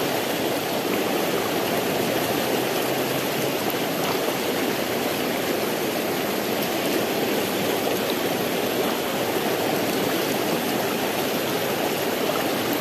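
Fast, shallow river rushing over rocks in rapids, a steady even wash of water.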